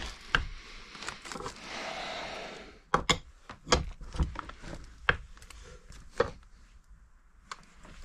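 Wrench and crankshaft-installer puller clicking and knocking against the aluminium crankcase as the crankshaft is drawn into a Honda AF05 engine case half: a short rushing noise, then a run of separate sharp metal clicks about every half second.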